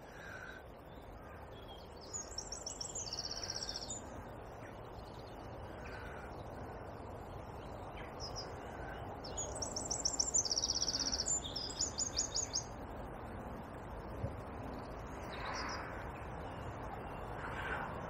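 Birdsong over a steady rush of flowing river water: a songbird sings short, high, rapid trilling phrases about two seconds in and again around ten seconds, with fainter calls between.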